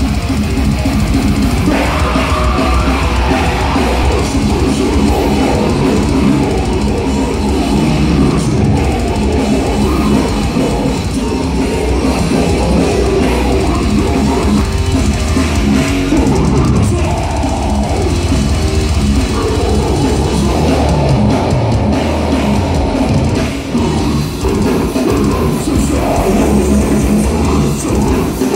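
Death metal band playing live and loud: distorted electric guitar and bass over a drum kit, with no breaks.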